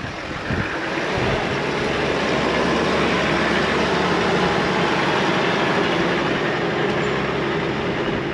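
A stuck 4x4 off-road camper's engine running hard under load as it tries to drive out of mud onto sand ladders. It rises about a second in and then holds steady.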